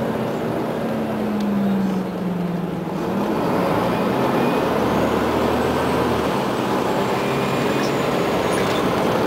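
Inside a Scania CN94UA OmniCity articulated city bus under way: engine and road noise. The engine note drops over the first few seconds, then holds steady.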